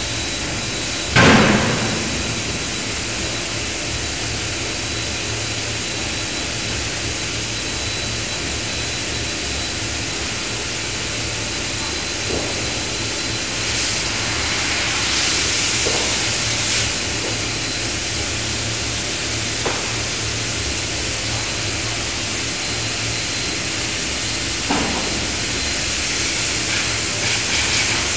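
A 5-ton electro-hydraulic die forging hammer strikes once, hard, about a second in. After that comes a steady machinery hum with a few much lighter knocks and a stretch of hiss midway.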